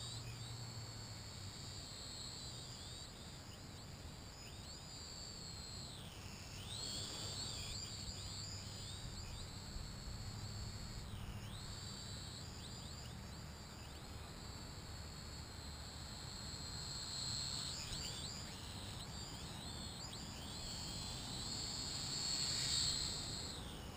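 Small quadcopter drone's motors whining in flight, the high pitch sliding up and down as it speeds up and turns, with sharp dips about six and eleven seconds in. The whine gets slightly louder near the end.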